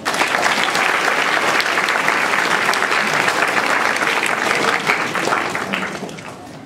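Audience applauding: dense, steady clapping that dies away over the last second or so.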